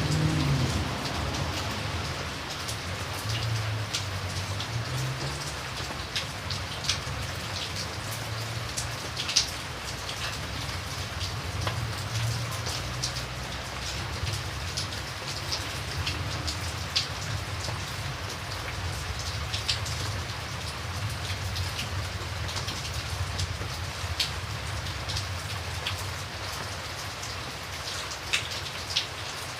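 Steady rain falling, with individual drops ticking sharply on a surface throughout. A low rumble is loudest in the first second or so and then stays faint underneath.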